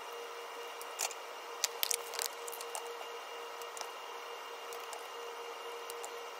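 Steady hum of lab equipment with a few light plastic clicks and taps from a micropipette being worked, most of them in the first couple of seconds.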